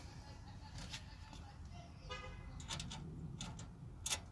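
Faint scattered clicks and knocks of plastic and metal as the orange high-voltage cable connectors are handled and fitted onto the hybrid battery pack's terminals, over a low steady rumble. A brief pitched sound comes about two seconds in.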